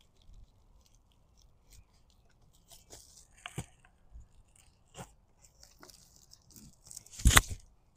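Plastic irrigation tubing and fittings being handled: scattered light clicks and rustles, with one louder knock about seven seconds in.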